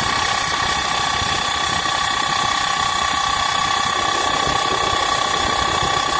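Blower running steadily with a loud, high whine and a fainter whine above it over a noisy hum. The noise may come from a worn drive belt, as the maker suspects.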